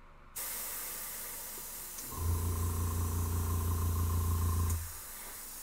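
Airbrush spraying a coat of paint: a steady hiss of air and paint starts just after the beginning. About two seconds in, the air compressor's motor starts humming steadily alongside it and cuts out shortly before the end.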